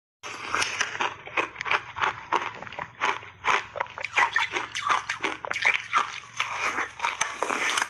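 Crunchy peach-flavoured block ice being bitten and chewed: a fast, irregular run of wet cracks and crunches.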